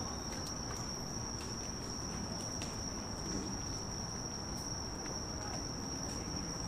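A night insect trilling on one steady, unbroken high note, over a low steady background hum, with a few faint scattered ticks.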